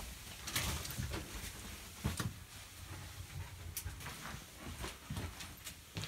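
Irregular scuffs, knocks and scrapes of movement over loose stones and rock, with a low rumbling handling noise underneath.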